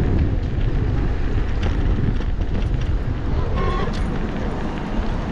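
Wind buffeting the action camera's microphone while riding an electric scooter at about 11 km/h, with a steady low rumble of small tyres over paving and a few short knocks from bumps in the pavement.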